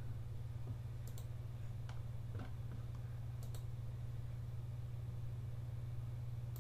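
A few separate computer mouse clicks, over a steady low hum.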